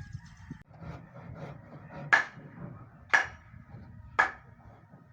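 Hammer blows on wood during carpentry: three sharp, ringing strikes about a second apart.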